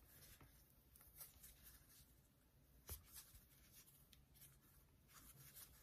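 Near silence: a faint rustle of a crochet hook drawing loops through chunky ribbon yarn while slip-stitching, with a soft tick about three seconds in.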